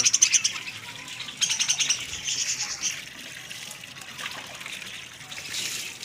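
Budgerigars chirping in rapid, high-pitched chatter, in two spells: at the start and again from about one and a half to three seconds in.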